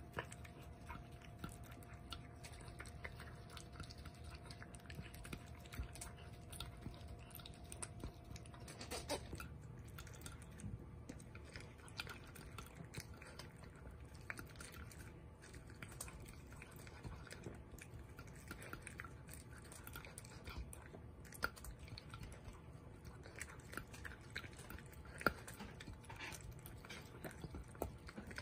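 A mame shiba puppy eating dry kibble: faint, irregular crunching and chewing, with many small clicks as it works the pellets out of a slow-feeder bowl.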